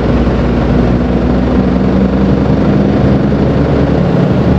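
Mercedes-Benz Atego bitruck's diesel engine running steadily at cruise, with road and tyre noise, heard inside the cab.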